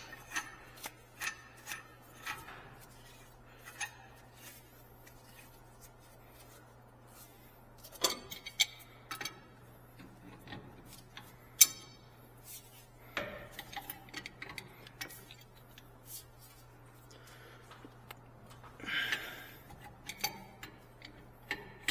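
Scattered metallic clinks and knocks of hand tools working on a pipe fitting, with a few sharper clicks near the middle, over a steady low hum.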